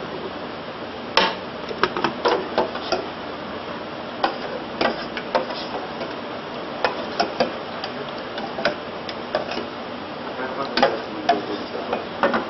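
Ladle stirring pumpkin soup in a stainless-steel saucepan, knocking and scraping against the pan's side and rim in irregular clicks, some in quick clusters, over a steady hiss.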